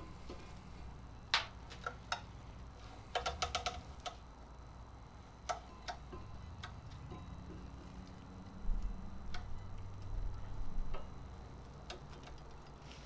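Light metal clicks and clinks of a VW 1.9 L ALH turbodiesel crankshaft being lowered into the block and settled onto new main bearings and thrust washers. A quick run of clicks comes about three seconds in and another cluster near ten seconds.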